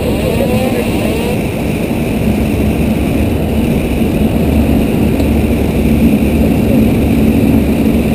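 Steady, loud cockpit noise of a Boeing airliner descending through heavy rain: air rushing over the nose and engine noise, with a steady low hum underneath.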